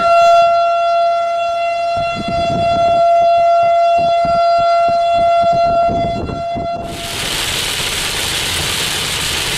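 Outdoor civil-defense warning siren sounding one steady tone, with low rumbling underneath; about seven seconds in it cuts off abruptly to a steady hiss of heavy rain on a moving car.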